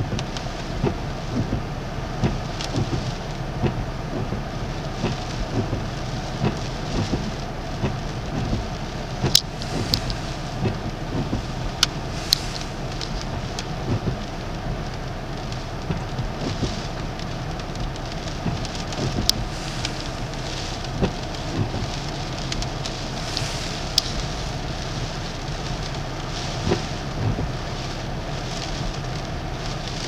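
Steady storm noise of wind-driven rain and sea spray in a Bora gale, with many scattered sharp ticks of drops striking close by.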